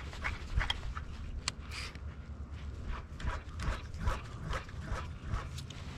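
Footsteps crunching through dry grass and brush, with irregular rustles and clicks, over a steady low rumble of wind on the microphone.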